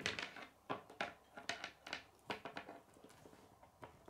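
Plastic K'nex Kid pieces clicking and tapping as they are snapped together and handled: a string of light, irregularly spaced clicks and knocks.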